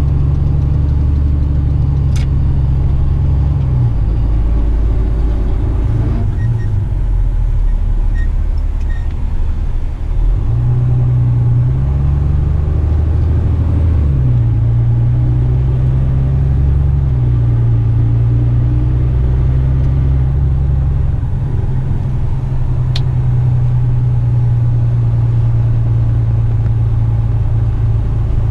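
Loaded heavy rigid tipper truck's diesel engine running at low speed, a steady low drone that shifts up and down in pitch several times as the truck slows and pulls away again.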